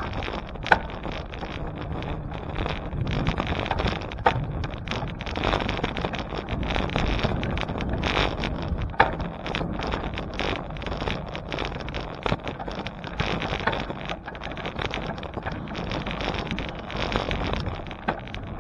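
Wind buffeting the microphone of a camera on a moving bicycle, over a steady rumble from the ride. A few sharp clicks or rattles cut through, the loudest just under a second in and about nine seconds in.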